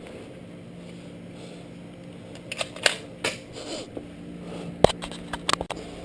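Sharp mechanical clicks and snaps of Nerf foam-dart blasters being primed and fired, in two clusters, the loudest about five seconds in.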